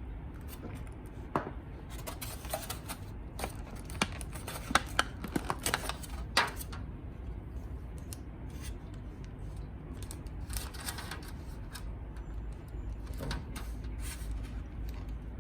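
A string of light clicks, taps and short scrapes from objects being handled, bunched in the first half with a few more later, over a steady low hum.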